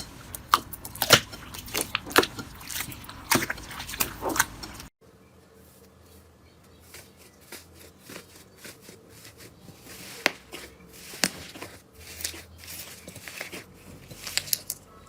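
Slime being worked, making sharp crackling clicks and pops. About five seconds in, an abrupt cut to a quieter stretch of sparser, softer clicks and pops that grow busier again near the end.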